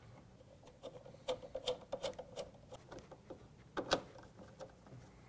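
Hand screwdriver driving a screw into a printer's frame: a run of light, irregular clicks and ticks, with a sharper click about four seconds in.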